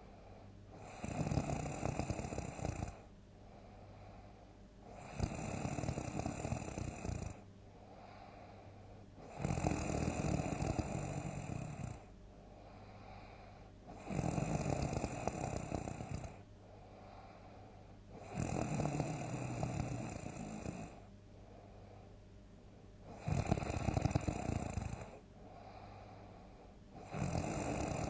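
A person snoring loudly in deep sleep, a long snore about every four seconds, seven in a row, with quieter breathing between them.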